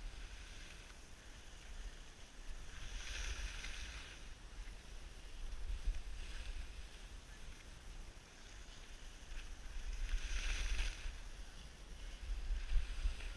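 Skis hissing and scraping over packed snow, surging four times as the skier carves turns, over a steady low rumble of wind on the microphone.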